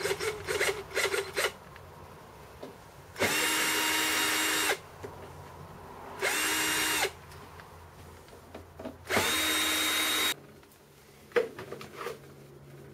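Cordless drill driving out the screws of a plasma cutter's sheet-metal side panel: three short runs of the motor, each winding up to a steady whine and winding down again. Light handling clicks come before and between the runs.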